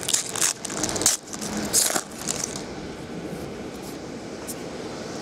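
Crinkling and rustling of foil card-pack wrappers and trading cards being handled, busiest in the first two seconds or so, then quieter.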